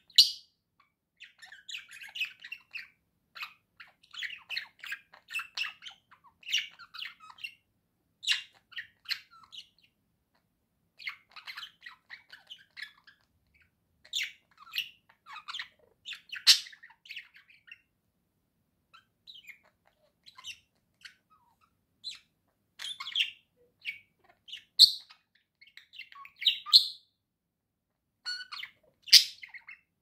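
Pet budgerigars chattering and warbling in clusters of quick chirps, broken by short pauses, with a few louder, sharper calls.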